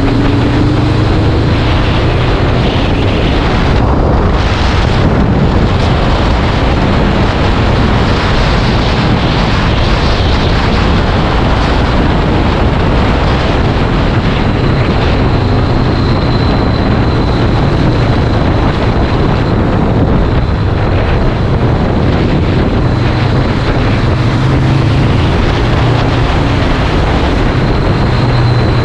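Honda CBR500R's parallel-twin engine running steadily while riding, under heavy wind noise on the microphone.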